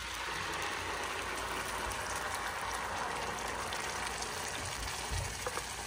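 Blended chile-and-tomato salsa sizzling steadily as it is poured into a hot frying pan with a little oil, easing slightly near the end.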